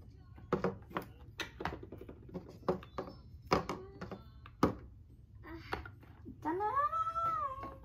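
Small plastic toy figures and playset pieces tapping and knocking on a play table, a string of sharp clicks. Near the end a child's voice rises and falls once in a short wordless sound.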